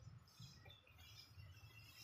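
Near silence, with a few faint, short high chirps over a faint low rumble.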